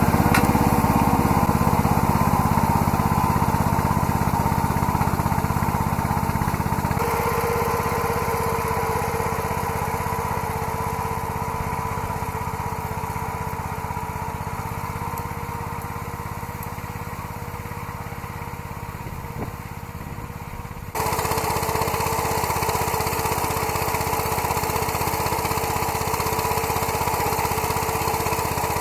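Small engine of a self-made garden tractor running steadily under load as it works the soil. It fades gradually as the tractor pulls away, then is suddenly loud and close again about two-thirds of the way through.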